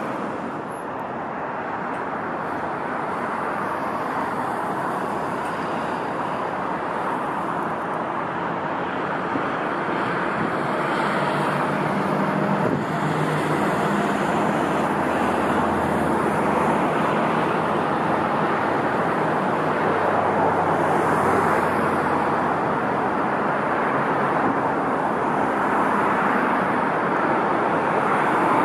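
Steady rushing noise of a jet airliner's engines, growing slowly louder as the aircraft approaches, mixed with road traffic.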